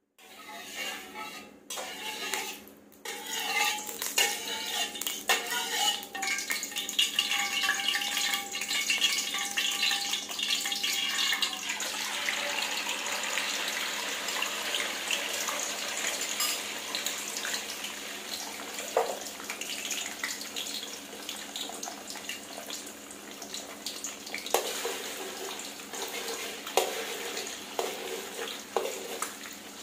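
Metal clinking with a ringing tone, then from about twelve seconds in, beaten eggs sizzling with a steady hiss in hot oil in a steel wok. Near the end a metal spatula scrapes and taps against the wok.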